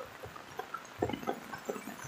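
Rain falling, with many irregular close taps of drops that come thicker about halfway through.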